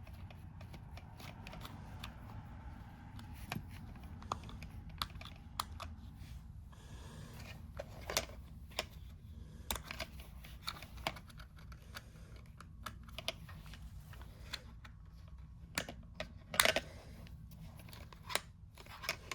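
Irregular small clicks and taps of plastic parts and a hand tool as a Sennheiser HD 280 headphone is being taken apart, with a few louder knocks about 16 to 17 seconds in, over a low steady hum.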